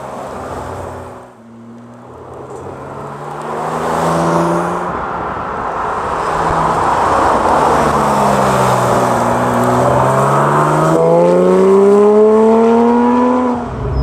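Porsche 997.2 GT3 RS 3.8-litre flat-six with a custom straight-pipe exhaust, driving past and building in loudness. Its engine note climbs steadily over the last few seconds under acceleration, then breaks off briefly near the end.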